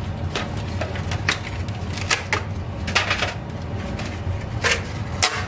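Aluminium foil pans and their clear plastic lids being handled and pulled from a stack, giving scattered sharp clicks and crinkles, about seven of them over a few seconds.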